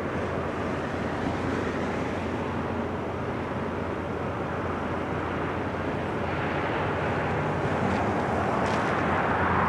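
Steady outdoor rumble of a distant four-engine C-130 Hercules turboprop landing, mixed with road traffic noise, growing louder near the end.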